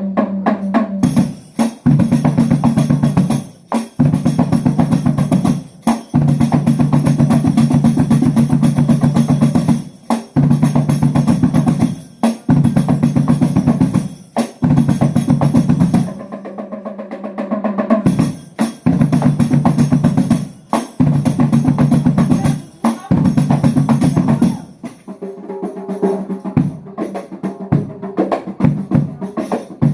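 Drums playing a fast, dense rhythm in repeated phrases, breaking off briefly about every two seconds, with a sparser, quieter stretch near the end.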